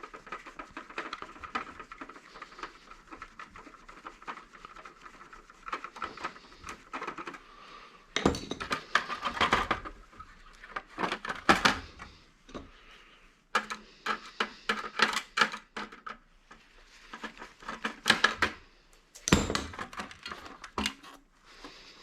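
Scrap being taken apart by hand: bursts of sharp clicks, rattles and metal clinks as the last screw is worked out and parts are handled and pulled loose. A faint steady whine sounds during the first third, then fades.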